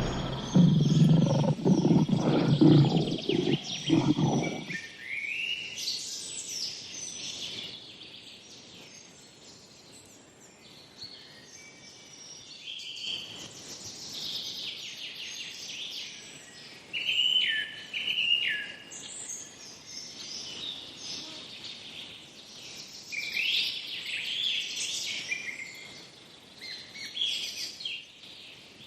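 A lion's low grunts trailing on for the first four seconds or so, then stopping abruptly. After that, wild birds call and chirp throughout, in short repeated phrases and whistles, loudest in a few bursts.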